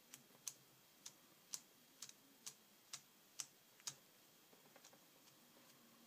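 Light, sharp clicks about two a second as a 1/8-inch Allen key turns the bolt back into the top of the pen, stopping about two-thirds of the way through, with a few fainter ticks after.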